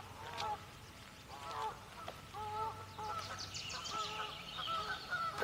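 Canada geese honking repeatedly, several calls overlapping one another. A brief run of high, rapid chirping joins in about three seconds in.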